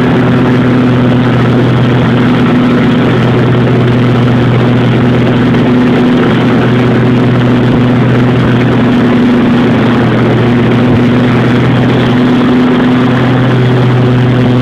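A 52-inch Wright Sentar mower's engine running steadily while its deck blades mulch leaves: a loud drone that holds one pitch, with an even rushing noise over it.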